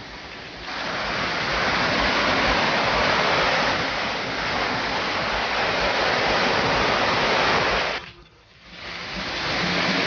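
Falling water from the Harbiye waterfall rushing steadily. It comes in about a second in and cuts out briefly near the end before returning.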